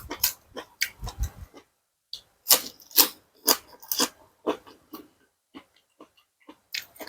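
Close-up chewing of a spicy seafood salad with fresh vegetables: wet, crunchy mouth sounds, about two chews a second through the middle, then softer and sparser.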